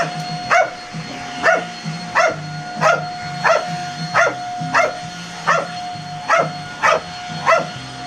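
A dog barking at a running vacuum cleaner, about three sharp barks every two seconds in a steady rhythm, over the vacuum motor's constant whine.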